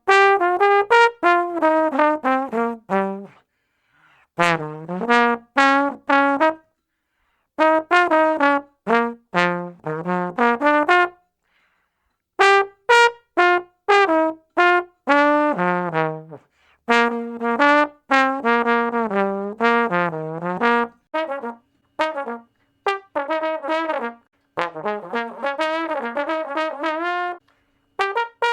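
Tuba playing short phrases of quick, detached notes that step up and down in pitch, each phrase a few seconds long and broken off by a brief silence before the next.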